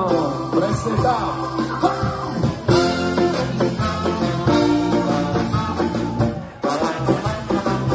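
Live ska band playing: electric guitars, saxophone and drums on a steady beat, with a brief break about six and a half seconds in before the band comes back in.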